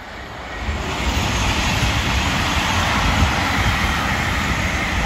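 East Midlands Railway Intercity passenger train passing close by on the main line: a steady rush of wheel and train noise with a low rumble under it, building about a second in and holding.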